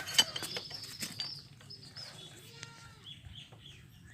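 Sharp metal clicks and clinks of hand tools and parts being handled during a scooter engine repair, bunched in the first second or so and then sparser and quieter.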